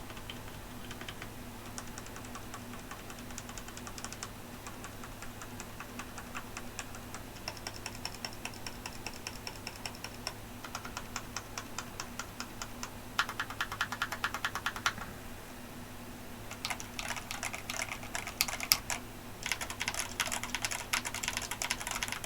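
Typing on a mechanical keyboard with Ajazz Diced Fruit Banana tactile switches: crisp key presses with a mid-pitched clack at the bottom of each stroke. The typing is light and even at first, then turns into faster, louder bursts in the second half.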